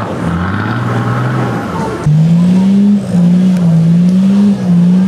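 Off-road 4x4 engines working hard on a climb. First a Suzuki Samurai's engine rises and falls in revs. About two seconds in, a louder engine is held at high revs in three long pulls with short drops between them, its pitch wavering slightly.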